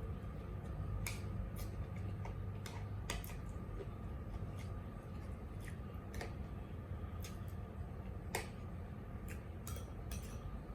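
Eating sounds: irregular sharp clicks and taps, like spoon and fork against a plate, about one or two a second, over a steady low hum.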